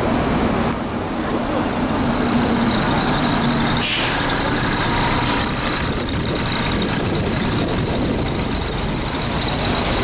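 Highway coach's diesel engine running as the bus rolls slowly past close by, with a brief hiss of air from its pneumatic system about four seconds in.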